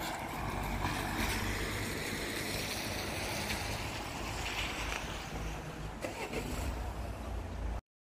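Wind buffeting the phone's microphone during a walk on a wet street, a steady rushing noise with a heavy low rumble. It cuts off suddenly near the end.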